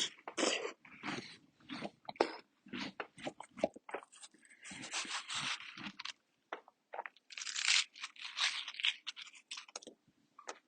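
Close-up chewing and biting of watermelon: a run of irregular crunches, busy throughout and thinning out near the end.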